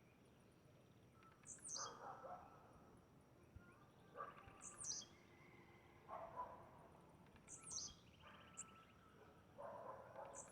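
Blue-black grassquit (tiziu) singing: a short, high, buzzy note repeated about every three seconds, faint. Lower, rougher sounds come between the notes.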